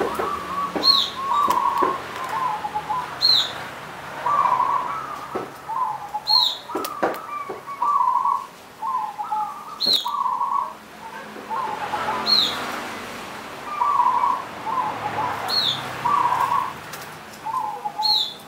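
Zebra dove (perkutut) singing: phrase after phrase of short, soft cooing notes, repeated every second or two. Brief, sharp high chirps cut in every two to three seconds.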